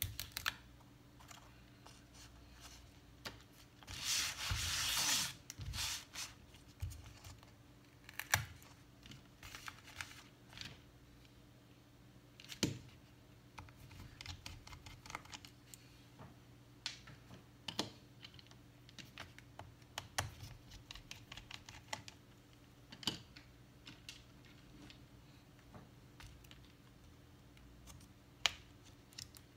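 Scattered light clicks and taps of a screwdriver, tiny screws and small parts being handled while a MacBook Pro's internals are taken apart, with a louder scraping rub lasting about a second about four seconds in.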